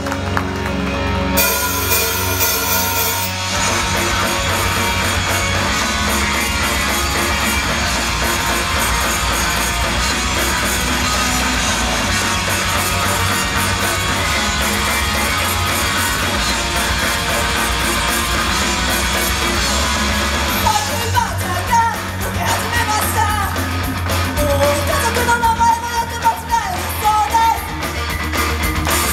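Live idol-group performance: a loud heavy rock song with singing over it. The music thickens into a dense, full passage a few seconds in, then thins near the end, where the singing comes forward.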